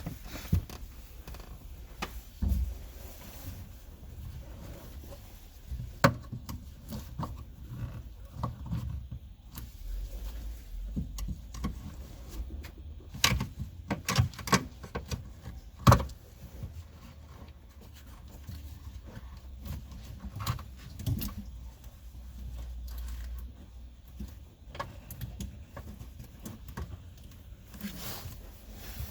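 Scattered clicks, knocks and rubbing from hand work on a car's rear quarter window trim, pulling off the glued-on upper window seal.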